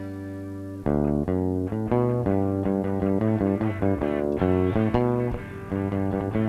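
Live electric guitar and bass guitar playing a rock song in rehearsal: a chord rings out, then about a second in the band comes in with a fast picked riff over a moving bass line.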